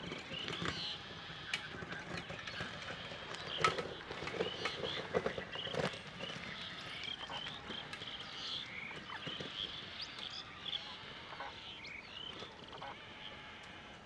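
Wetland bird chorus: many short chirps and calls overlapping, with a few sharp clicks about four to six seconds in.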